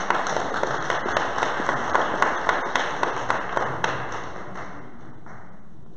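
Audience applauding, individual claps standing out, fading away about four and a half seconds in.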